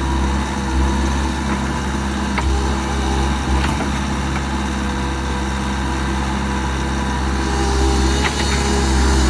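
Bobcat Toolcat 5600's diesel engine running steadily, a little louder near the end, with a few faint clicks.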